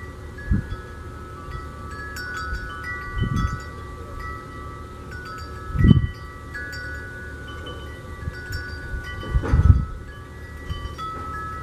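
Wind chimes ringing: several clear metal tones struck at random moments, each ringing on and overlapping the others. Wind buffets the microphone in short low rumbles about four times.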